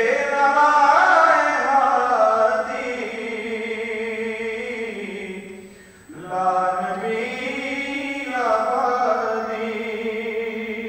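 One voice chanting in long, drawn-out phrases with a wavering pitch: two phrases, the second beginning after a short break about six seconds in.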